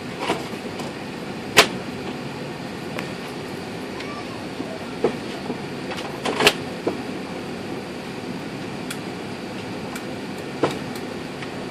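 Cabin noise inside an Airbus A380 taxiing on the ground: a steady rumble and hiss, broken by scattered sharp clicks and knocks, the loudest about one and a half seconds in and again about six and a half seconds in.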